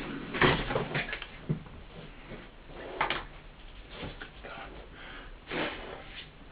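Irregular knocks, scrapes and rustles of a loudspeaker chassis being handled on a workbench, a few short separate sounds with the loudest about half a second in.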